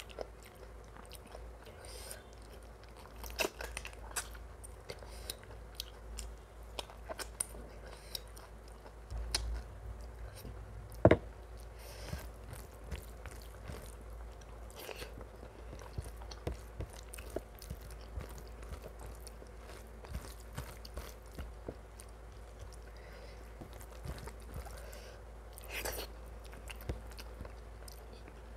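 A person chewing and biting mouthfuls of mutton curry and rice close to the microphone: a steady run of short wet mouth clicks and smacks, with one sharp, much louder click about eleven seconds in. A low steady hum runs underneath.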